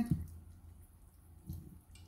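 Near silence: room tone with a steady low hum and one faint soft bump about one and a half seconds in.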